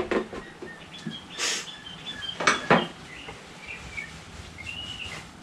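Light handling noises of work on an engine: a short rustling hiss, then two sharp clicks close together about two and a half seconds in. Small birds chirp faintly throughout.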